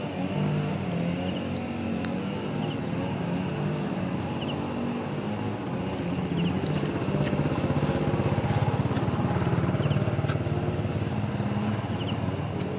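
A motor engine running steadily with a low hum that grows louder about halfway through and eases off near the end, with faint short high chirps now and then.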